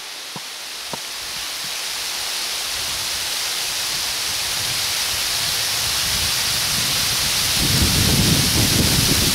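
Wind noise growing steadily louder, with low rumbling gusts buffeting the microphone from about eight seconds in.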